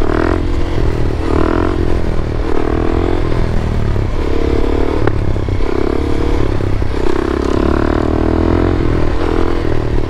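Suzuki DR-Z400SM single-cylinder four-stroke engine through an FMF PowerCore 4 exhaust, ridden hard in a wheelie. The engine note comes in repeated surges about a second long with short dips between.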